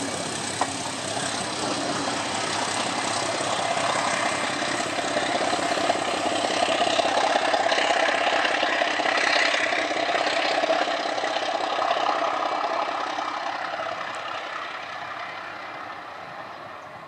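Passenger train passing: double-deck coaches rolling by on the rails, with the running of the class 749 diesel locomotive hauling them. The sound swells for several seconds, then fades as the train draws away round the curve.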